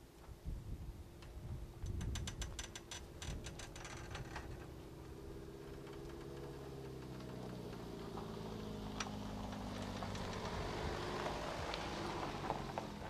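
A quick run of sharp clicks about two seconds in, then a delivery van's engine running as it pulls away, its pitch rising and wavering as it grows louder.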